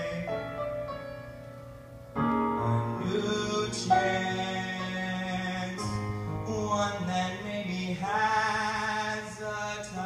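A boy singing into a microphone over musical accompaniment; the music gets suddenly louder about two seconds in.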